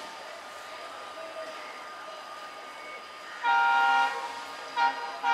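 Train horn: one blast of a bit over half a second, then two short toots, over steady background noise of the station.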